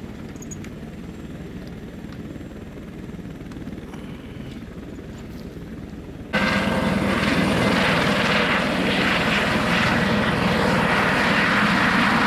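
Tour helicopter noise: a quieter low rumble, then suddenly, about six seconds in, the much louder close-up sound of a helicopter flying low past, with the dense rush of its rotor and the steady whine of its turbine.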